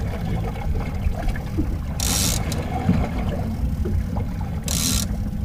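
Steady low rumble of a small fishing boat on choppy open water. Two short hissing bursts come about two seconds in and again near the end.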